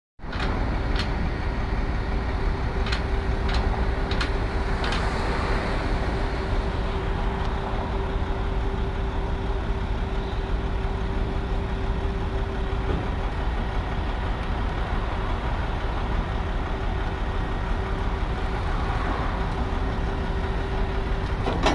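Flatbed tow truck's engine idling steadily with a constant low hum. A few sharp clicks come in the first five seconds.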